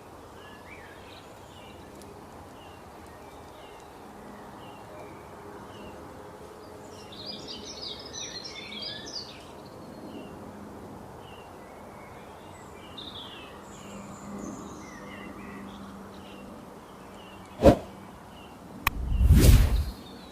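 Small forest birds chirping and singing over a steady background hiss, with a busy flurry of song about a third of the way in. Near the end, a sharp click and then a louder low burst of noise lasting about a second.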